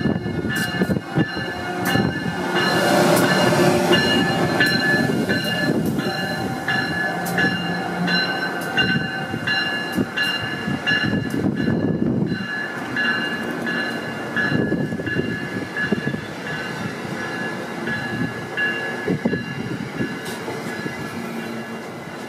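HO-scale model train running past: small metal wheels clicking over the rail joints over a steady rolling rumble, with a thin steady high whine. The locomotive has a DCC decoder with no sound module, so this is the model's own mechanical noise. It is loudest a few seconds in and fades as the cars roll by.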